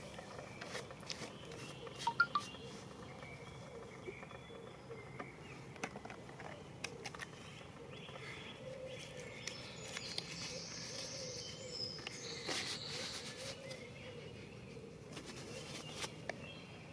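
Faint rustling and crinkling as a moist-towelette packet is opened and the paper towelette pulled out and unfolded, with scattered small clicks of handling. The loudest crinkling comes about ten to thirteen seconds in.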